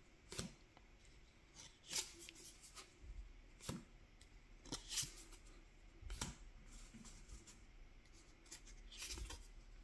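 Faint flicks and slides of foil Magic: The Gathering trading cards being flipped through by hand, one card moved from the front to the back of the stack every second or two.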